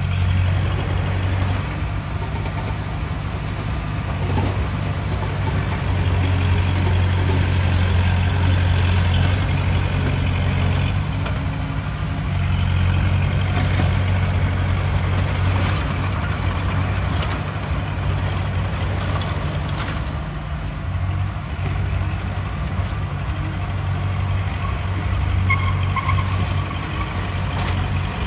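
Heavy diesel earthmoving machinery running, a deep steady engine drone that swells and eases with the load, with a few brief knocks and hisses on top.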